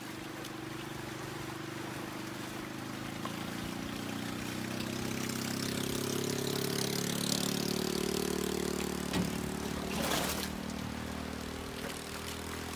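A motor's drone passing by, a steady hum with several pitches that swells to its loudest about two-thirds of the way through and then fades. A brief rushing noise comes about ten seconds in.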